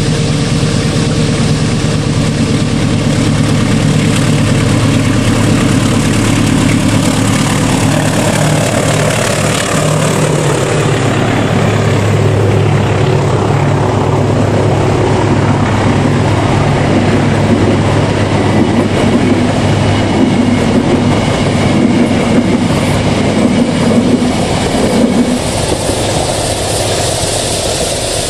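Diesel-electric locomotive hauling a passenger train past: its engine drones steadily, then drops in pitch as it goes by about ten seconds in, followed by the coaches rumbling and clattering over the rail joints.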